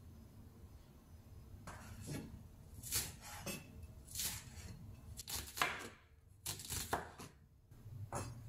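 Kitchen knife chopping spring onion on a wooden cutting board: about a dozen separate, irregular strokes, starting a couple of seconds in.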